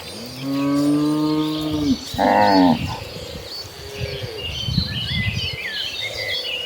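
Cattle mooing: one long, low moo, then a shorter, higher and louder one at about two seconds, and a fainter moo around four seconds in. Birds chirp in the background.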